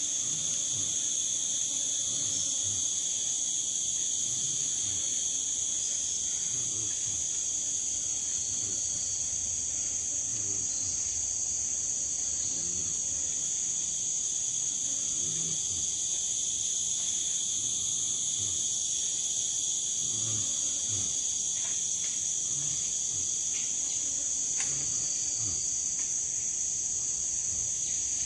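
Chorus of forest insects: a steady, high-pitched drone that runs on without a break.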